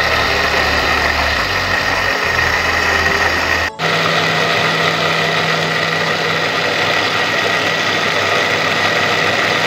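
Electric blender motor running steadily at full speed, grinding soaked dried red chillies with water and vinegar into a puree. The sound drops out for a split second about four seconds in, then carries on unchanged.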